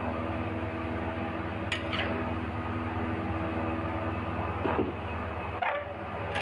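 Metal spatula scraping and knocking against an aluminium wok as rice noodles are stir-fried, a few separate strokes over a steady background hum.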